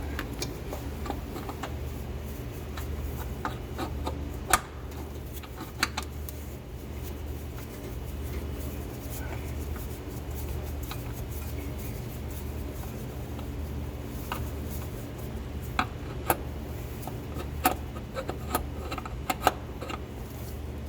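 Scattered light clicks and knocks of the new oil filter and tools being handled while fitting the filter, over a steady low hum, with a cluster of sharper knocks in the last few seconds.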